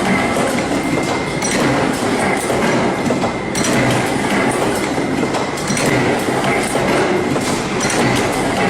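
Machinery running with a steady, dense clattering and rattling noise and a faint steady high whine.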